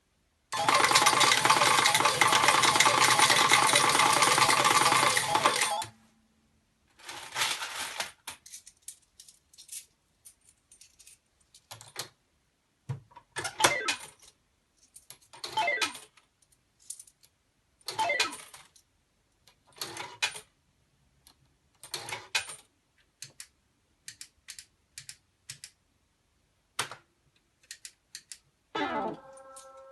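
Metal tokens clattering in a Hanabi pachislot machine. There is a dense, continuous clatter for about five seconds, then short clattering bursts about every two seconds. Electronic beeping tones begin right at the end.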